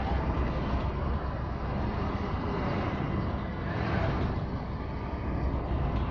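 Street traffic and the engine of a double-decker sightseeing bus idling close by: a steady low rumble.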